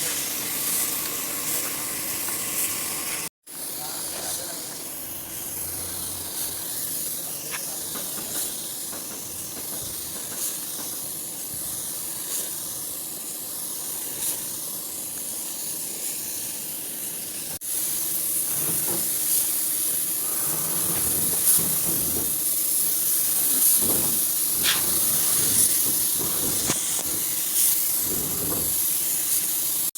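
Steady hiss, strongest in the high end, with a sudden dropout about three seconds in and a step up in level a little past the middle, followed by scattered short ticks.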